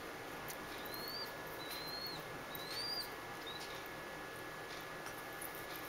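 Baby pigeon (a three-week-old squab) squeaking while being syringe-fed: about five short, thin, high squeaks, each rising then levelling off, in the first three and a half seconds, faint over the room's background.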